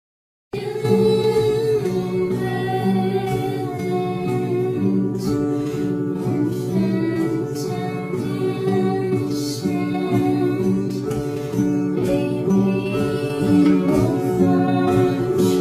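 A song comes in abruptly about half a second in after dead silence, with plucked guitar and singing.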